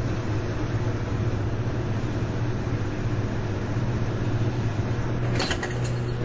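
Two washing machines, an Amana and an Elite series 4, running together: a steady motor hum under a rushing churn. A few short clacks come near the end.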